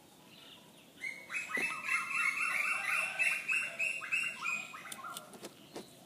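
A bird calling in a quick run of short, repeated pitched chirps, starting about a second in and lasting about four seconds. A few faint clicks come from a knife cutting into the husk of an areca nut.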